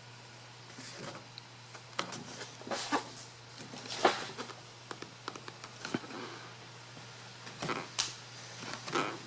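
Scattered light knocks and rattles as an aluminum truck tool box, held down with VHB tape, is tugged upward by hand; it does not come loose. A faint steady hum underneath.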